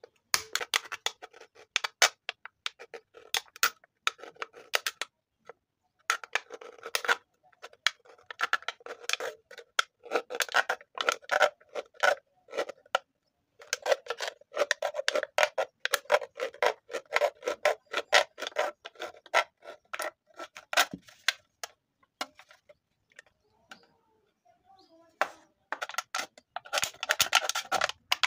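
Blade scratching and cutting into the thin aluminium wall of a beer can: runs of rapid scratchy clicks lasting several seconds each, broken by short pauses and one longer pause near the end.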